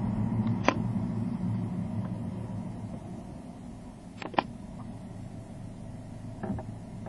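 Car road and engine noise heard inside the cabin through a dashcam, a steady low hum that grows gradually quieter as the car slows. A sharp click sounds about a second in, two more come close together near the middle, and a fainter one comes near the end.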